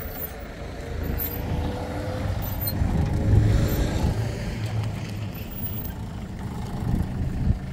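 A motor vehicle's engine running with a steady low rumble, a faint whine rising slowly in pitch over the first couple of seconds, and a louder swell a few seconds in.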